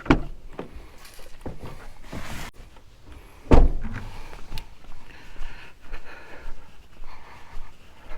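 Several knocks and thumps. The loudest comes about three and a half seconds in, with lighter clicks and a short rustle between them.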